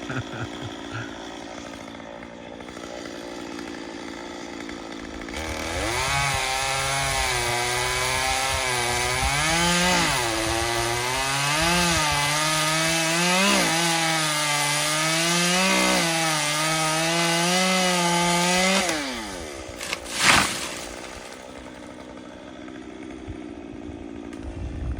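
Two-stroke chainsaw running at low throttle, then held at full throttle cutting through wood for about thirteen seconds, its pitch dipping and recovering again and again as the chain loads in the cut, before falling back to idle. A short loud burst follows a second or so later.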